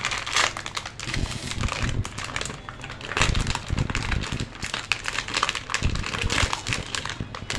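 Plastic wrapper of a packaged chocolate snack cake crinkling and rustling in the hands as it is torn open, a dense irregular crackle throughout.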